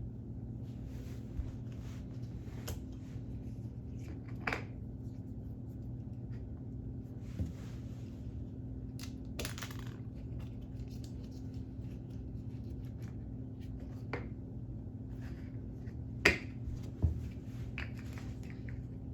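K'nex plastic parts clicking and rattling as the wheels are pulled off a model: scattered light clicks and knocks, with a couple of louder ones near the end, over a steady low hum.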